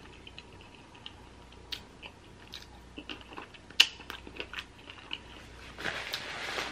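Close-miked chewing of sausage: soft, wet mouth clicks and smacks, with one sharper click about four seconds in. Near the end comes a soft rustle as a paper napkin is handled to wipe the hands.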